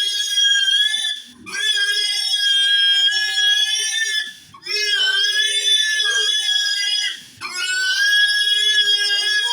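A grower pig squealing loudly and continuously while it is held in a rope pig catcher for a vaccination injection. It gives long, high-pitched, sustained screams, each two to three seconds long, with short breaks for breath about a second, four seconds and seven seconds in.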